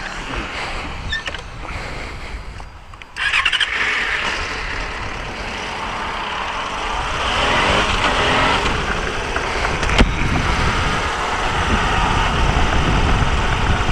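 A 2006 Yamaha FZ6S's 600cc four-cylinder engine, on its stock exhaust, pulls away and rides on, with wind rushing over the microphone. The sound jumps sharply louder about three seconds in as the bike gets under way, and there is a single short click about ten seconds in.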